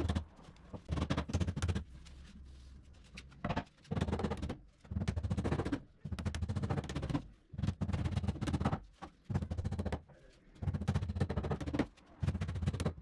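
Hammer nailing a thin MDF back panel onto a wooden cabinet frame: runs of quick blows, each run lasting about a second, with short pauses between them. The blows have a hollow knock from the cabinet body.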